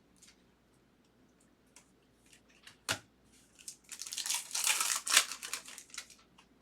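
A foil trading-card pack wrapper being torn open and crinkled: one sharp click about three seconds in, then a second or two of dense tearing and crinkling.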